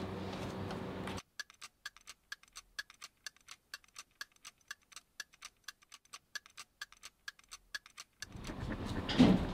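Wall clock ticking, a steady run of evenly spaced tick-tock clicks with nothing else under them. Near the end the room's background hum returns and there is a single thump.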